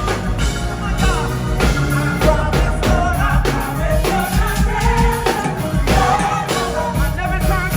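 Gospel choir singing with a live band, drums keeping a steady beat under the voices.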